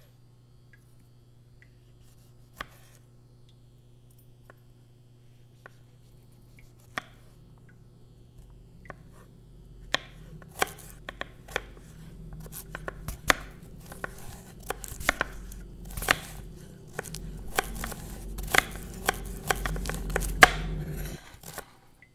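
Chef's knife chopping mushrooms and carrot on a wooden chopping board: a few single cuts at first, then from about halfway a fast, quickening run of chops that grows louder and stops abruptly just before the end. A low drone swells underneath the chopping and cuts off with it.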